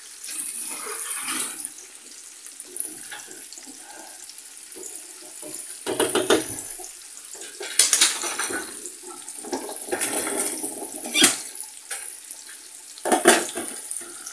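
Pan of sliced onions sizzling, with pots and utensils clattering several times.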